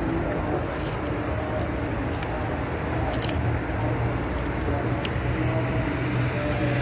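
Steady machine hum and rumble, with a few light plastic clicks as a float level switch is handled and turned over.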